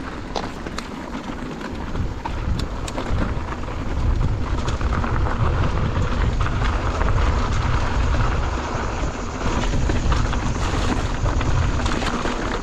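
Wind buffeting the action-camera microphone as a steady, fluctuating rumble, with scattered light ticks and clicks.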